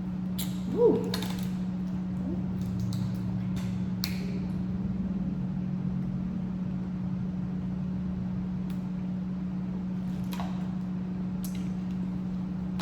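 Seafood boil being eaten: crab shells cracked and picked, with scattered sharp snaps and clicks, mostly in the first few seconds and twice more near the end, over a steady low hum.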